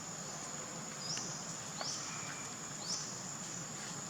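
Insects calling: a steady high-pitched drone with short rising chirps that repeat about once a second, three of them here.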